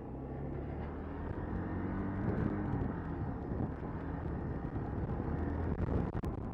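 Motorcycle engine running as the bike is ridden. Its note rises about a second and a half in as it speeds up.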